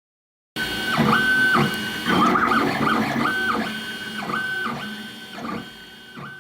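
FLSun V400 delta 3D printer running, its stepper motors whining in pitched tones that rise, hold and drop again with each quick move, about six moves in all, over a light mechanical rattle.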